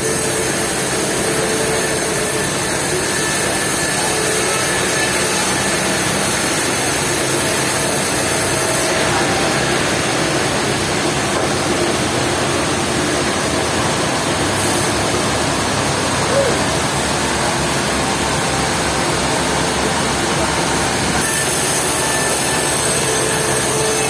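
Sawmill saw cutting through a log: a loud, steady machine noise with a dense hiss that changes abruptly about 9, 15 and 21 seconds in.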